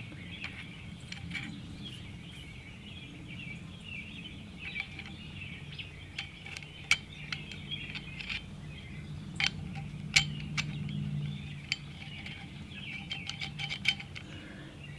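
Sparse small metallic clicks and taps as a hammer spring and hammer are fitted into the steel receiver tube of a Crosman 761XL air rifle, with a cluster of sharper clicks in the second half.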